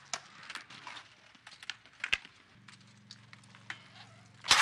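BMX bikes on a concrete skatepark: scattered clicks and knocks from the bikes, a sharp knock about two seconds in, and a loud brief impact near the end.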